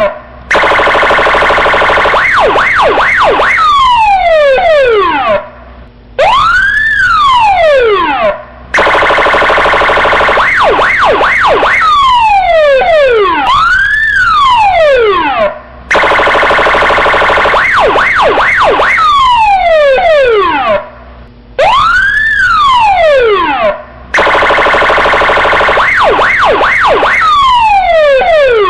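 Electronic police siren cycling through its tones in a loop that repeats about every seven and a half seconds. Each cycle has a steady, harsh buzzing tone with a few quick yelps over it, then falling sweeps, then one slow rising-and-falling wail, with short breaks between the parts.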